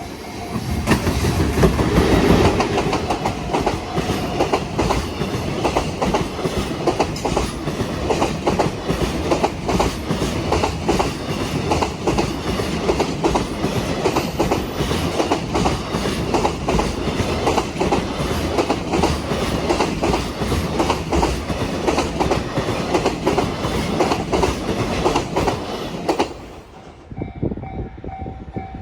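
A freight train of container wagons passing a level crossing close by, its wheels clattering over the rail joints in a dense run of clicks; the noise drops off suddenly about 26 seconds in as the last wagon clears. A level-crossing warning bell rings steadily underneath and is heard clearly once the train has gone.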